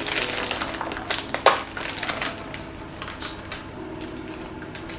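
Foil pouch of icing crinkling and crackling as it is handled and worked open, dense for the first two seconds or so, then fainter.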